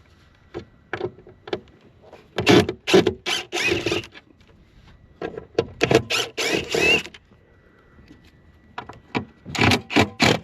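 Power drill run in short bursts, each a fraction of a second to nearly two seconds long with a wavering whine, backing out the bolts that hold a truck side mirror's back cover.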